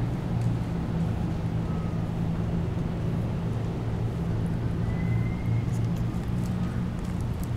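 Steady low hum of a running motor, with two faint short whistles, the second rising slightly about five seconds in.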